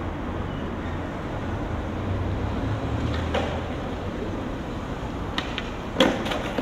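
Skateboard wheels rolling on pavement with a steady low rumble, broken by a few sharp wooden clacks of the board, the loudest about six seconds in.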